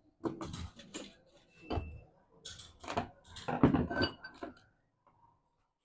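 Metal clicks and clinks as a B3 air rifle's action and small steel tools are handled on a workbench: a string of knocks and taps over the first four and a half seconds, a few of them ringing briefly, then quiet.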